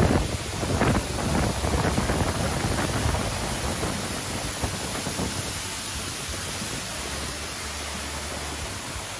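Man-made waterfall pouring off a wall into a canal basin: a steady rushing splash of falling water. Gusts of wind on the microphone make the first few seconds louder and rougher.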